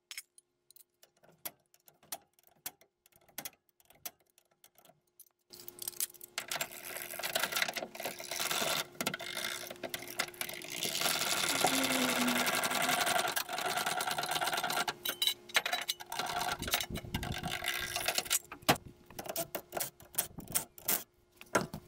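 Metallic clicking and clatter from hand tools at a van's front wheel, as the lug nuts are worked loose and the van is jacked up onto a stand. Nearly quiet for the first five seconds, then a dense, fast run of clicks that is thickest in the middle and thins out near the end.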